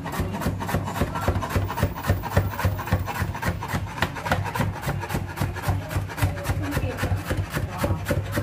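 Cleaver chopping bitter gourd into thin slices on a plastic cutting board: a quick, even run of knocks, about four to five a second.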